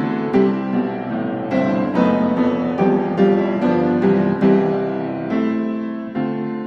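Background piano music: a slow melody with a new note or chord struck about every half second to a second.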